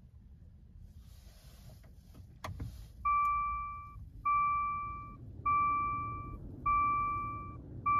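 2024 Maserati Levante GT starting up: a short hiss and a sharp click about two and a half seconds in, then a low engine rumble at idle. Over it a dashboard warning chime dings five times, each tone nearly a second long and spaced about a second and a quarter apart.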